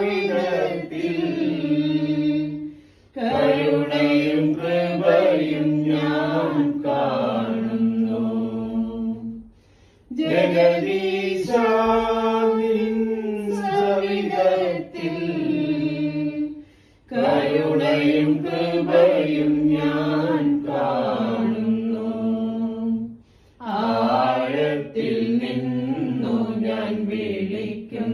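Small mixed choir of men and women singing a slow Malayalam hymn for the departed, unaccompanied, in long phrases broken by brief pauses for breath.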